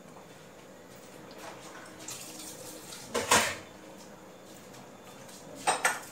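Steel kitchenware clattering as pots and utensils are handled. Softer knocks come first, then a loud clank about three seconds in and another near the end.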